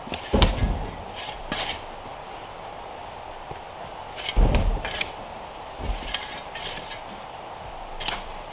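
Long-handled shovel digging into sandy soil: repeated short scraping crunches as the blade bites in, with two dull thuds, one near the start and one about four seconds later.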